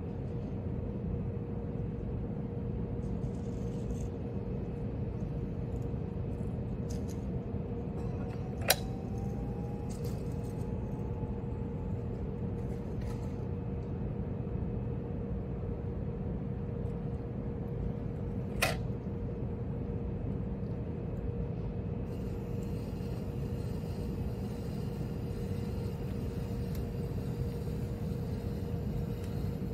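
Steady low rumble with a constant hum, broken by two sharp clicks about ten seconds apart.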